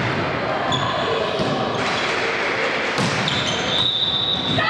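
Volleyball rally in a sports hall: sharp ball hits ring out over a constant echoing din of voices. A high-pitched voice or call holds steadily near the end.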